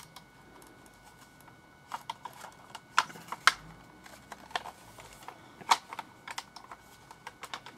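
Irregular sharp clicks and light knocks from handling an airsoft G3 replica and pulling back and folding out its detachable bipod, the loudest about three seconds and five and a half seconds in.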